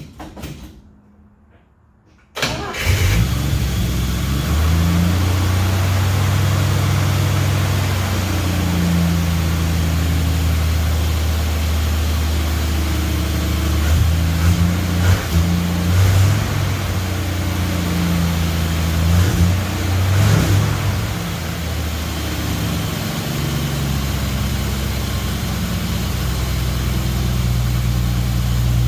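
1964 Dodge D100 pickup's engine catching about two seconds in, then running steadily with small rises and falls in engine speed.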